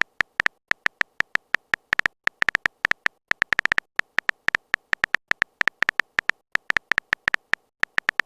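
Phone keyboard typing sound effect: a long run of short, sharp key-tap clicks at an uneven quick pace, with a few faster bursts of taps.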